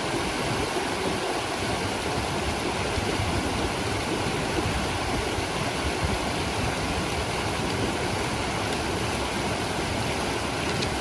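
A fast mountain river rushing over rocks, a steady, even noise of running water.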